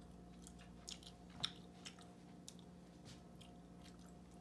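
Faint chewing of a piece of dark chocolate, a few soft scattered clicks over a low steady hum.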